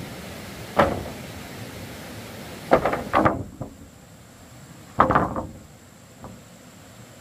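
Wooden planks knocking and clattering as they are handled: a single sharp knock, then two quick clusters of knocks, then a faint one.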